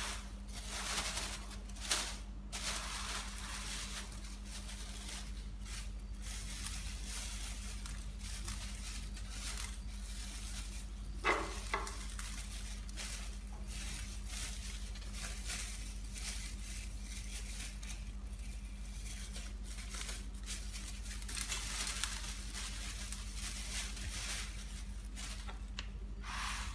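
A thin plastic bag rustling and crinkling as it is shaken and squeezed, with dry quail feed crumbles pouring out onto an aluminium tray. A few short, sharper sounds stand out, about two seconds in and again around eleven seconds in.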